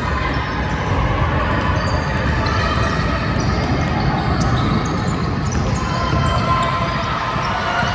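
Basketball bouncing on a gym floor during a game, over a steady din, with many short high squeaks scattered through it.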